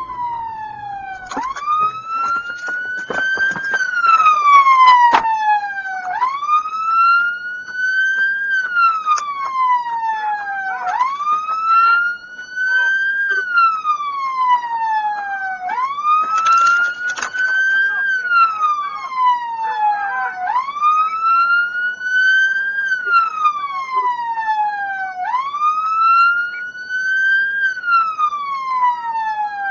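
Police car siren on a wail, each cycle jumping up, climbing and then sliding slowly back down, repeating about every five seconds. A few sharp knocks about four seconds in and a short clatter past the middle.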